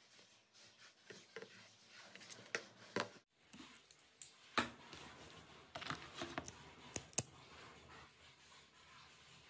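Scattered small clicks and taps from hands handling and fitting parts onto a handmade wooden match gun, with a few sharper clicks spread through.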